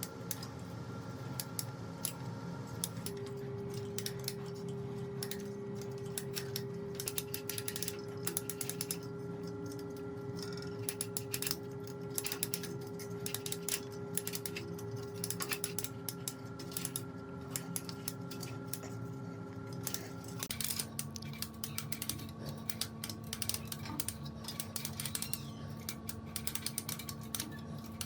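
Irregular light clicks and taps of small hard objects being handled, over a steady low tone that shifts pitch twice.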